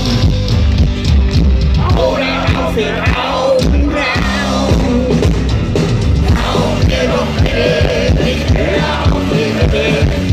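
Live rock band playing loudly through a large PA, with acoustic guitar, bass guitar and drums under a man singing in German, heard from the crowd.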